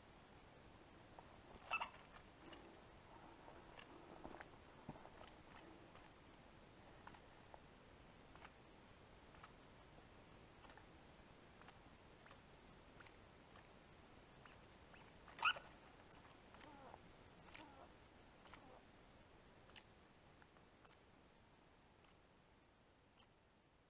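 A small animal giving short, high-pitched chirps, faint and scattered at first, then about one a second near the end, with two louder calls among them.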